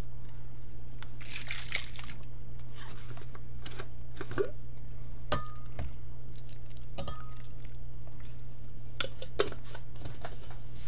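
Rinse water sloshed and poured from the seasoning grinder's jar into a mixing bowl of flour and ground split-pea mix, with scattered clinks and taps of the jar. A steady low hum runs underneath.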